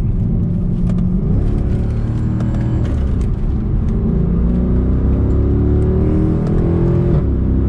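Mercedes C63 AMG Edition 507's 6.2-litre V8 pulling hard under acceleration on track, its revs climbing steadily and then dropping suddenly near the end at an upshift.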